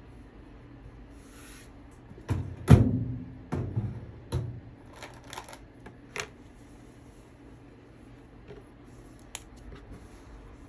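Cloth and a marker being handled on a tabletop: a handful of thumps and knocks a couple of seconds in, the loudest about three seconds in, then light rustles and small clicks, with one sharp click near the end as the Sharpie is picked up. A low steady hum lies underneath.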